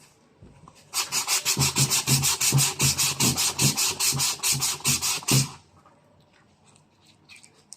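Sandpaper on a hand sanding block rubbed back and forth over a surface in fast, even strokes, about six a second. It starts about a second in and stops about five and a half seconds in.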